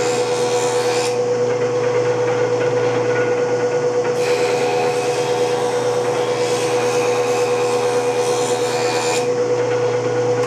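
Vintage Craftsman 4-inch jointer running with a steady motor hum, its cutterhead planing the rough edge of a board smooth: one pass ends about a second in, and a second pass runs from about four to nine seconds.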